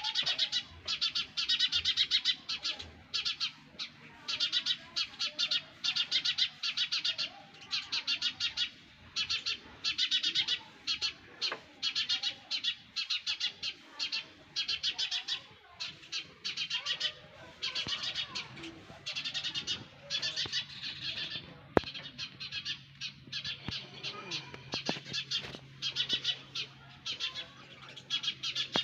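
Baby sparrows in the nest chirping in quick, high trains of calls, burst after burst about once a second. There is a single sharp click about three-quarters of the way in, and a faint low hum runs under the later part.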